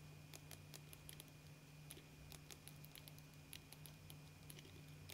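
Faint, irregular clicks of a computer mouse, several a second, over a steady low hum.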